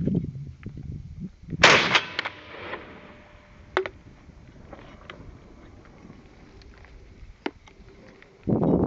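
A single shotgun shot about a second and a half in, sharp and loud, echoing away over about a second. A lighter sharp click follows about two seconds later.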